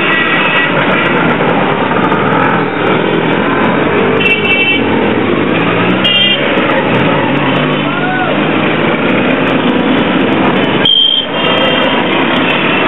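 Steady din of dense street traffic, with short horn toots a few times, including a run around four seconds in and a high tone near the end.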